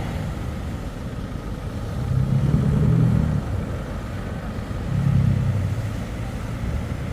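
Twin Yamaha four-stroke outboard engines rumbling steadily, swelling louder twice as the throttle is opened.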